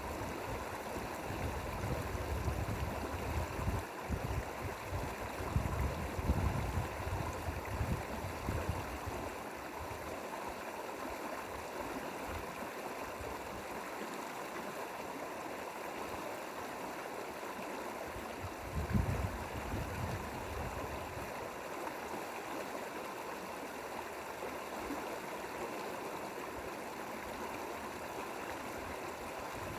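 Mountain stream water flowing steadily, an even rushing sound. Low rumbles come and go during the first several seconds and once more briefly in the middle.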